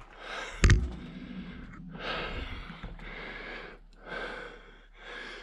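A single sharp knock about a second in, then a person breathing heavily close to the microphone, several breaths in a row.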